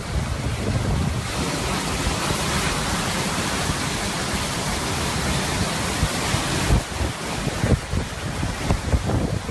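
Hurricane Maria's eyewall winds blowing hard, with gusts buffeting the microphone in low rumbling thumps, a few louder ones near the end. The sound cuts off abruptly at the end.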